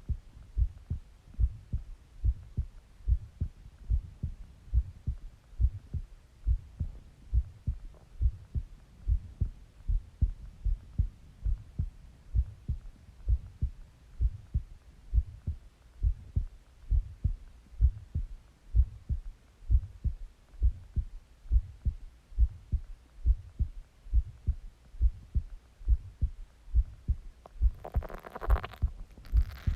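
A human heart beating steadily, picked up close on the body: a regular run of low, dull thumps, about two to three a second. A short rushing sound rises over it near the end.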